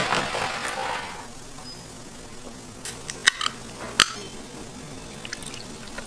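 Ice cubes clinking against a drinking glass: a handful of sharp clinks about three to four seconds in, a few faint ones later, after a short hiss at the start.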